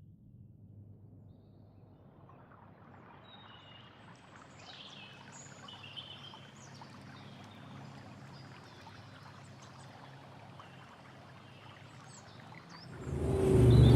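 Quiet natural ambience fading in: a soft trickling of water with small birds chirping high and briefly. About 13 seconds in it gives way abruptly to loud traffic noise, a low rumble of vehicles.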